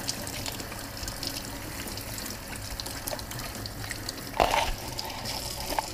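Kitchen sink faucet running steadily while a sweet potato is rinsed by hand under the stream, with a brief thump about two-thirds of the way through.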